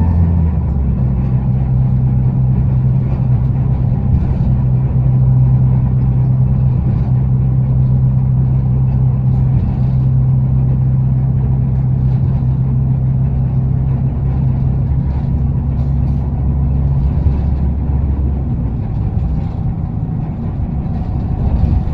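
A TransJakarta city bus in motion, heard from inside the cabin: the steady low drone of its drivetrain over road noise. The drone drops away about seventeen seconds in.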